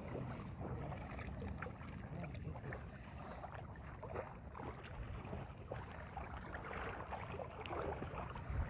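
Water splashing and sloshing while a fishing net is worked, over a steady low rumble of wind on the microphone.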